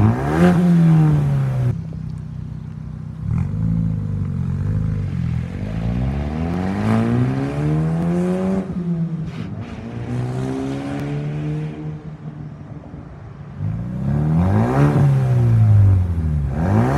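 Ford Bronco's 2.3L EcoBoost turbocharged four-cylinder through an MRT King Of The Hill turn-down exhaust. It is revved at a standstill, then pulls away with a rising pitch that drops back twice, as at gear changes, and is revved again near the end.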